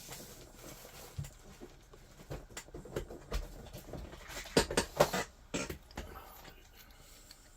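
Scattered small clicks and knocks of objects being handled on a work table, with a louder cluster of knocks about four and a half to five seconds in.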